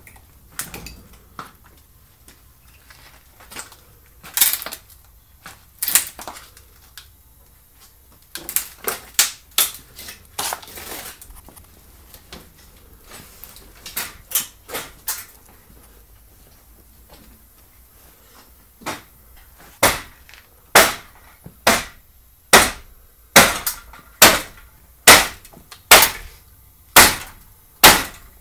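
Footsteps on a bare, debris-strewn concrete floor: sharp slapping steps, uneven at first, then a steady pace of about one step a second through the second half.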